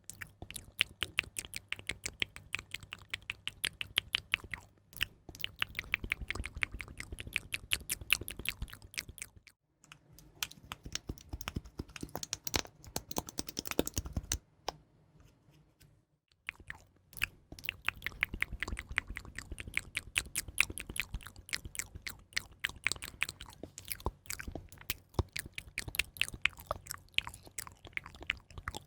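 Close-miked ASMR trigger sounds: dense runs of crisp clicks and crackles, pausing briefly about ten seconds in and again for a couple of seconds around the middle.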